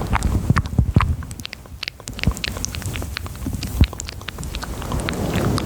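Close-miked ASMR trigger sounds on a very sensitive microphone: a dense scatter of sharp clicks and crackles over a low rubbing noise, which thins out in the middle and builds again near the end.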